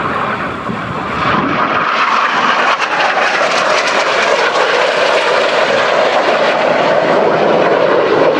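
Jet noise from a pair of Red Arrows BAE Hawk T1 jets, whose Adour turbofans are heard as the aircraft fly past. The sound swells about a second in and holds loud, its pitch sinking slowly as they pass.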